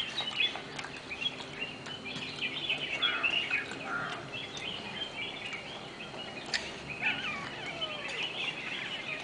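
Small birds chirping, many short high calls overlapping, with one sharp click about six and a half seconds in.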